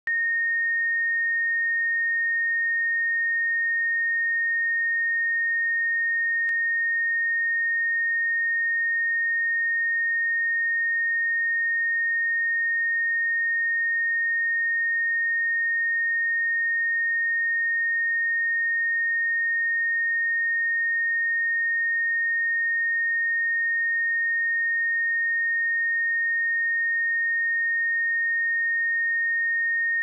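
Steady 1847 Hz sine-wave test tone: one pure, unbroken high tone at a constant level.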